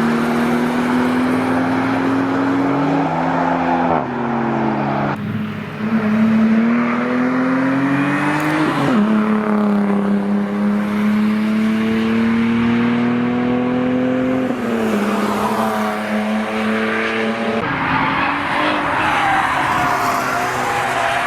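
Toyota Supra's 2JZ inline-six held at high revs, its pitch climbing slowly and dropping sharply several times, with tyres squealing under wheelspin.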